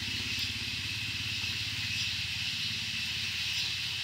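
Steady high-pitched drone of an insect chorus, with a low, fast-pulsing rumble of a small engine running beneath it.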